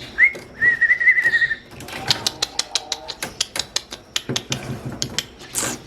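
Long-tailed shrike (cendet) singing: a short rising whistle, then a warbling whistled phrase of about a second. After it comes an irregular run of sharp, dry clicking ticks lasting several seconds.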